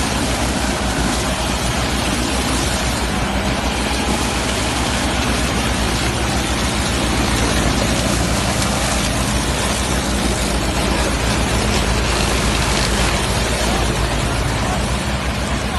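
Whole-stalk sugarcane harvester working: its engine runs steadily with low, even tones under a dense, continuous mechanical rush.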